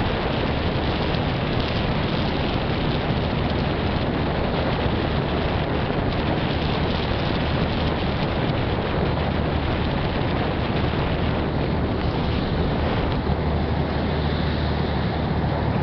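Passenger ferry under way: the engine's steady low drone under a constant rush of wind and water noise, the drone a little stronger near the end.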